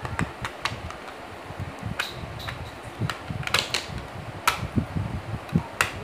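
Irregular plastic clicks and light knocks from a small black antenna housing with gold coaxial connectors being handled and fitted together, over the steady whir of an electric fan.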